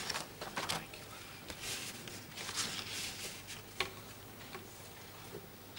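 Faint room tone with scattered soft rustles and small clicks, a sharper click a little before four seconds in.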